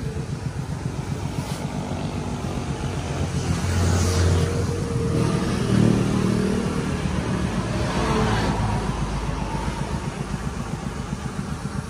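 Motor vehicles passing on the road over a steady low engine throb, swelling louder twice near the middle.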